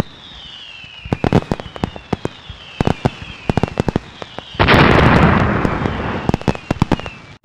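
Diwali fireworks: a string of sharp firecracker bangs with several falling whistles. A louder, denser crackling burst comes about four and a half seconds in and dies away.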